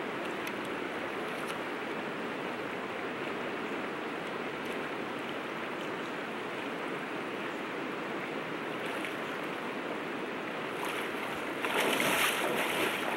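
Steady rush of river water. Near the end it is joined by louder splashing from legs wading through shallow water.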